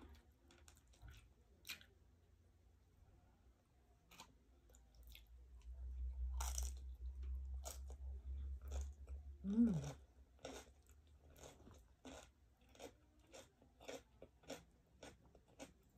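Close-up mouth sounds of chewing grilled chicken inasal and steamed cabbage: wet crunching and biting with short crisp clicks, about two a second in the second half. About ten seconds in comes a brief low murmur of the eater's voice.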